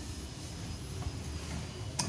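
A low steady rumble, with a faint metallic click about halfway through and a sharp click near the end as the wheel's lug nuts and wrench are worked.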